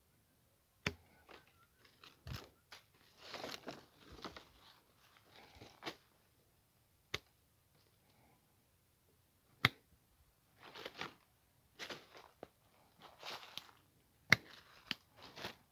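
Hand pruning shears snipping through thin quince branches: a handful of sharp snips spaced a few seconds apart, with rustling of the branches between them.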